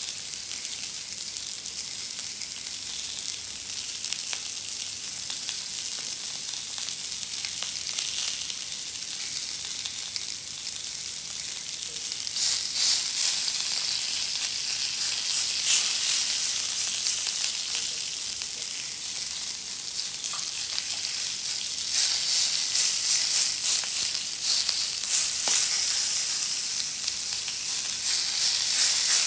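Kingfish steak sizzling in olive oil on a ridged grill pan: a steady frying hiss that swells several times into louder spitting and crackling, most of all from about halfway through.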